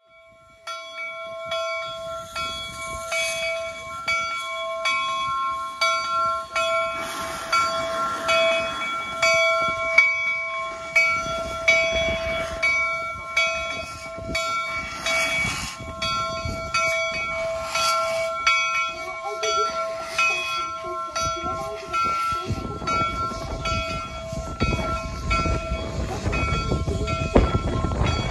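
Replica steam locomotive Jupiter's bell rung over and over as the engine moves off, its steady ringing tones pulsing with each swing, with hisses of steam from the cylinders every few seconds. A low rumble builds in the last few seconds.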